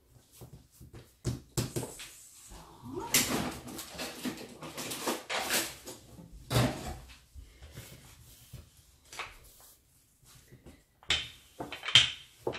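Hands pressing and patting yeast dough on a floured worktop, with irregular thumps and scuffs, loudest a few seconds in. Near the end a wooden rolling pin starts rolling over the dough.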